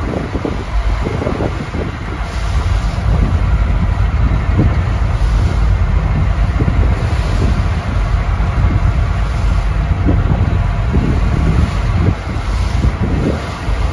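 Boat running at speed: a steady engine drone mixed with wind buffeting the microphone and water rushing and splashing along the hull.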